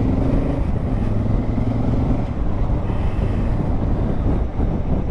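2019 Honda Africa Twin CRF1000L's parallel-twin engine running with a steady note.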